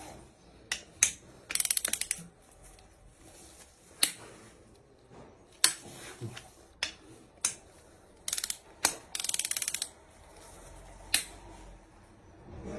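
Ratchet wrench clicking in short quick runs, with sharp single clicks between, as the cylinder head bolts of a Mercedes CDI diesel engine are given their final 90-degree tightening turn.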